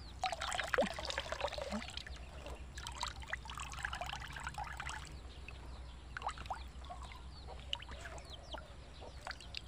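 Coconut milk pouring and trickling through a plastic strainer into a basin as a hand squeezes wet grated coconut. There are two heavier spells of pouring in the first half, then lighter dripping.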